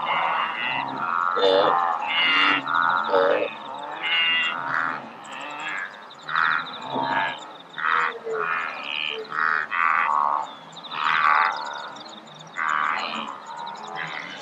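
A wildebeest herd calling: many short, nasal grunting calls overlapping one another, with a steady high tone underneath.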